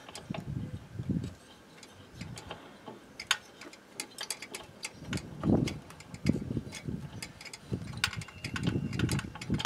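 Hand work with small metal tools on a moped engine's breaker-point ignition plate: scattered, irregular light clicks and clinks, mixed with soft, dull handling and rubbing noises.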